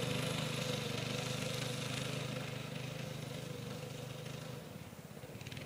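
Go-kart's 3.5 hp Briggs & Stratton single-cylinder four-stroke engine running steadily, growing fainter as the kart drives away.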